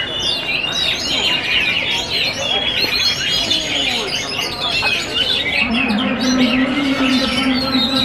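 Several caged oriental magpie-robins (kacer) singing at once, a dense tangle of overlapping chirps, trills and whistles. A steady low droning tone joins about six seconds in.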